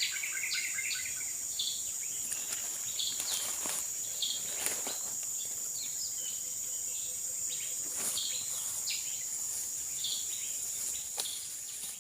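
Steady high-pitched drone of insects, with scattered short chirps and a few faint clicks over it.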